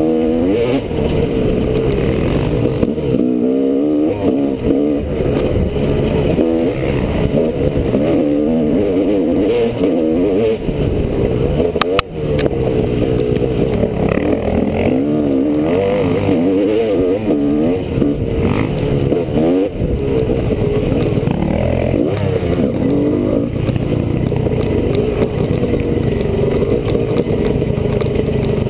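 Honda CR250R two-stroke single-cylinder engine revving up and down continuously as the dirt bike is ridden on a trail. There is one sharp knock about twelve seconds in, where the engine briefly drops off.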